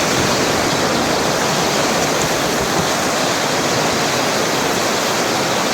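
Whitewater of a river rapid, rushing steadily without a break.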